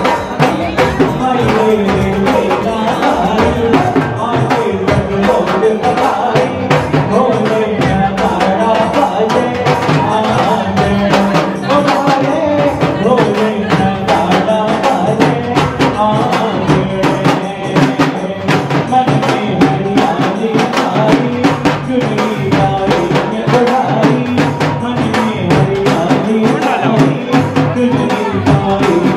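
Marwari folk wedding song music with a steady, busy beat on drums and jingling percussion.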